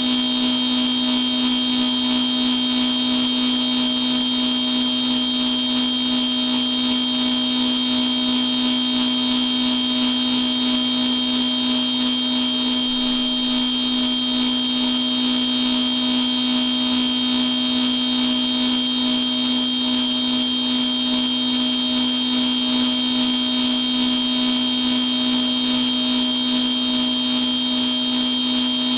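CNC machine tool running steadily, dry and without cutting material, with a constant whine made of a low hum and a high tone that never changes.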